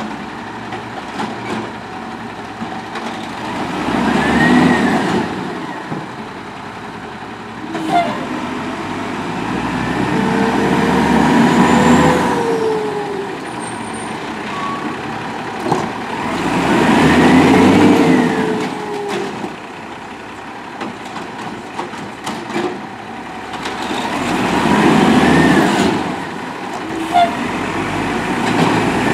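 Diesel engine of a Peterbilt 320 automated side-loader garbage truck revving up and settling back in repeated swells, about every six to seven seconds, with a rising and falling hydraulic whine as the lift arm and packer work. A few short sharp sounds stand out between the swells.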